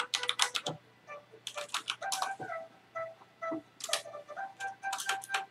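Several short bursts of quick, light clicking and clattering, over faint background music with held notes.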